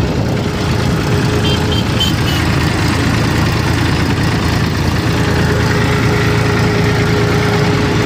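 Tractor diesel engine running steadily as the tractor drives along, heard up close from the driver's seat beside the exhaust stack, with a constant drone and no change in pace.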